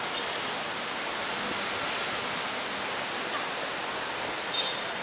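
Steady, even hiss of busy city street traffic, the engines and tyres of passing buses, cars and motorbikes blended together, with one brief click a little before the end.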